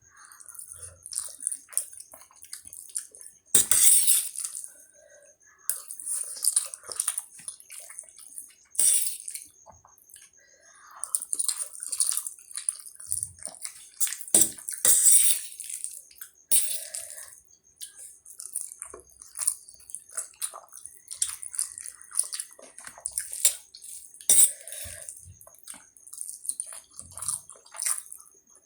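Close-up eating sounds of spicy Maggi instant noodles: irregular wet slurps and chewing, several of the slurps loud, with small smacks and clicks between them.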